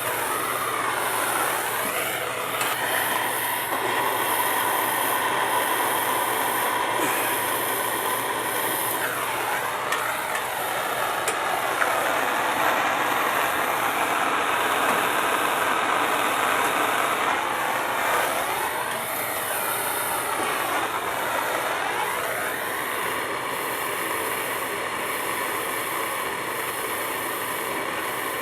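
Handheld plumbing torch flame burning with a steady roar while heating a copper pipe joint for soldering.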